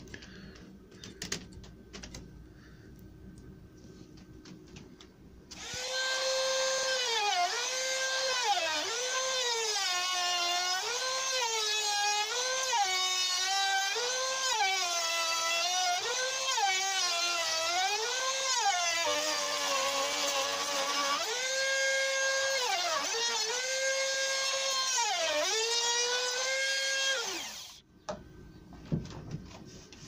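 Makita trim router running and cutting a finger-pull groove in a timber door, a high motor whine that dips in pitch again and again as the bit takes load and recovers in between. It starts about five seconds in and is switched off shortly before the end, after a few light clicks of handling at the start.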